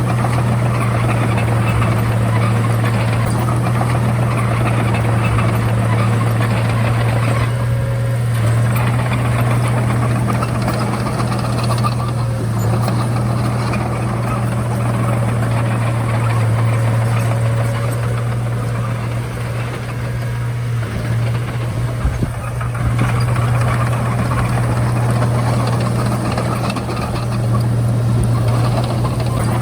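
Komatsu D31A bulldozer's diesel engine running steadily under working load, with a deep, constant hum that eases briefly a couple of times.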